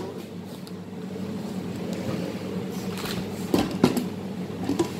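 Stainless-steel lid of an Ambiano electric pressure cooker knocking against the pot as it is fitted, two sharp knocks about three and a half seconds in and a lighter one near the end. A steady low mechanical hum runs underneath.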